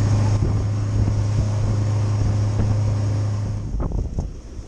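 Motorboat engine running with a steady low hum, wind buffeting the microphone; the engine sound drops away about three and a half seconds in, followed by a few short knocks.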